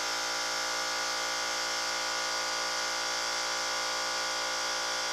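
Small electric motor of a Taig mini lathe running with a steady, unchanging hum.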